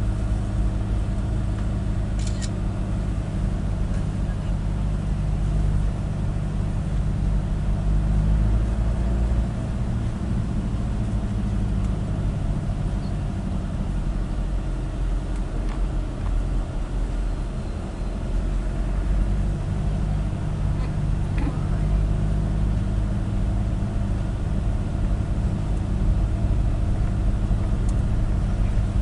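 Engine and road noise of a moving vehicle heard from inside its cabin: a steady low drone whose pitch shifts a couple of times, about ten seconds in and again a little before twenty seconds.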